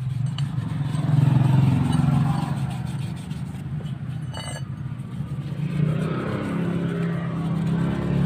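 A road vehicle's engine running and revving, its pitch rising and falling, loudest about a second in and again near the end.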